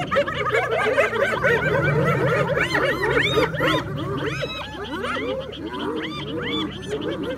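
A group of spotted hyenas calling over one another: many overlapping high, short yelping and giggling calls that rise and fall in pitch, continuing without a break.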